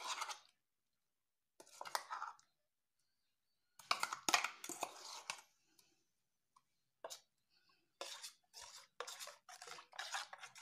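Intermittent scraping and clinking of steel kitchenware in short separate bursts, as ground masala paste is scraped into a stainless steel bowl of dal stock and mixed in.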